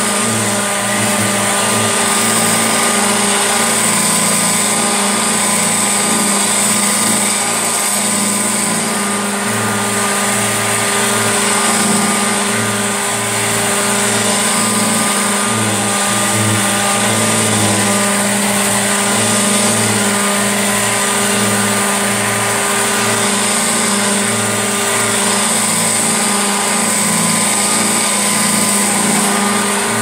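Nearly 70-year-old Hoover 119 upright vacuum cleaner running steadily while pushed back and forth over a rug, vacuuming up carpet powder. A constant motor hum with a high airy hiss on top, its low hum wavering slightly with each stroke.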